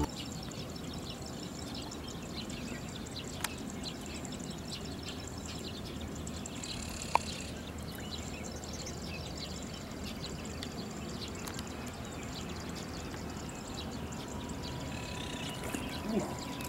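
Outdoor waterside ambience: a steady low rushing like flowing water, with faint high chirps and ticks throughout and two sharp clicks, one about three and a half seconds in and one about seven seconds in.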